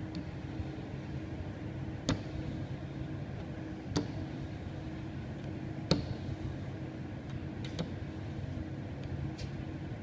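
Sticky dust-removal roller worked back and forth over a glass pane, with a sharp click about every two seconds, three louder and two fainter, over a steady low hum.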